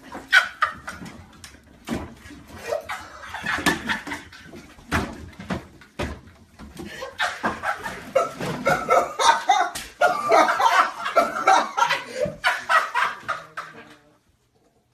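Excited voices laughing and shouting, with repeated sharp slaps and knocks throughout. It all stops abruptly about a second before the end.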